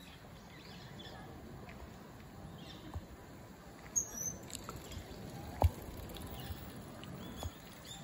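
Quiet outdoor ambience with scattered small clicks and taps, the sharpest about five and a half seconds in, and faint high chirps now and then.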